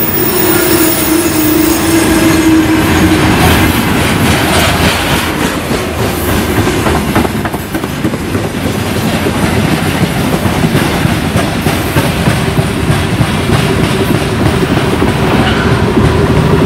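Freight train hopper wagons rolling past close by: a steady heavy rumble of wheels on rail, with the clickety-clack of wheels over rail joints. A steady ringing tone runs for about three seconds near the start.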